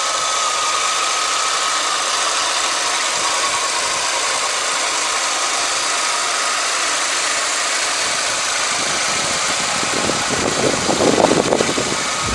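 Chevrolet Tornado's four-cylinder engine idling steadily with the hood open.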